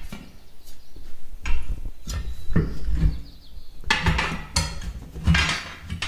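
A series of irregular metallic clanks and knocks from tire-changing work on a bus wheel, metal tools striking the rim and tire.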